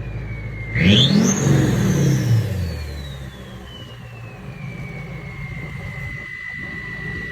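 Turbodiesel pickup engine blipped once, its turbocharger whistle shooting up in pitch, then spooling down in a long falling whine. The whistle settles into a steady high whine at idle.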